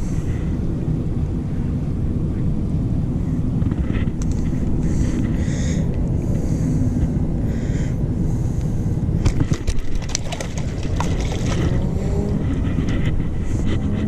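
Wind buffeting the microphone in a steady low rumble. A few sharp clicks come about nine to ten seconds in, as the lure is worked out of the fish's mouth.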